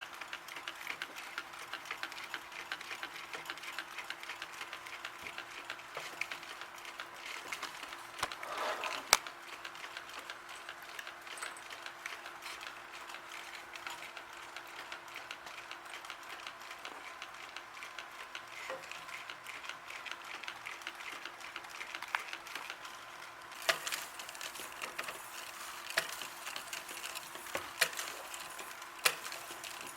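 Electric fireplace's simulated wood-crackling sound effect: a continuous patter of small crackles with an occasional sharper pop, most of the pops in the later part, over a faint steady hum.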